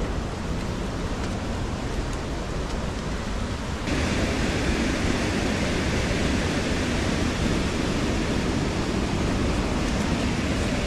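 Waterfall running big in high flow: a steady, dense rush of falling water that gets louder about four seconds in.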